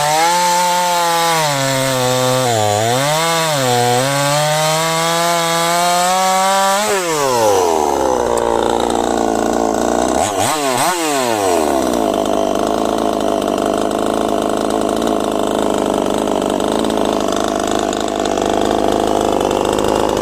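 Chinese-made chainsaw running at high speed through firewood, its engine note dipping twice under load. About seven seconds in the throttle is let off and the note falls; it is revved twice briefly, then settles into a steady idle.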